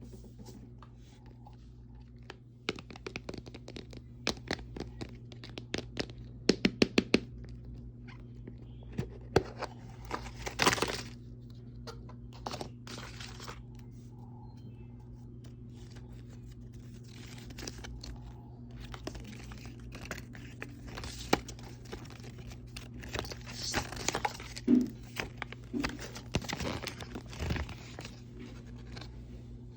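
Hands unwrapping Mini Brands toy capsules: plastic wrapping crinkling and tearing, with many sharp clicks and taps, loudest in clusters around a quarter and near the end. A steady low hum runs underneath.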